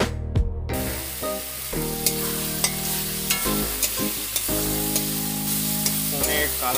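Onions and ground ginger-garlic masala sizzling in hot oil in a pan, stirred with a spatula that clicks against the pan now and then. The sizzle comes in under a second in, over steady background music.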